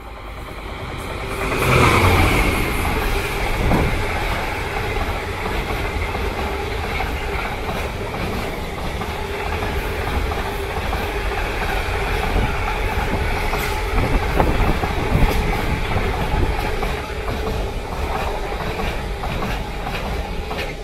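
Freightliner Class 66 diesel locomotive (EMD two-stroke V12) hauling a container freight train past: the locomotive's sound builds to its loudest about two seconds in as it goes by. Then the long train of container wagons follows with a steady rumble and clatter of wheels on the rails.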